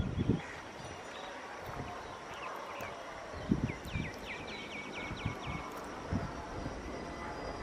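Outdoor background with a bird giving a quick run of about eight falling chirps a little under four seconds in, and occasional low gusts of wind thumping on the microphone.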